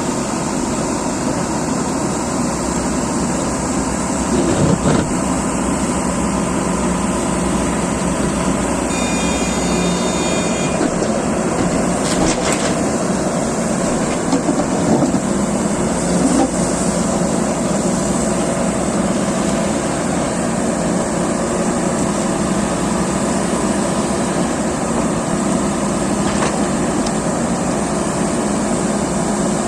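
Diesel engines of JCB excavators running steadily under working load, with occasional knocks and a brief high-pitched tone about nine seconds in.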